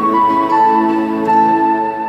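Instrumental background music: a melody of long held notes over sustained chords.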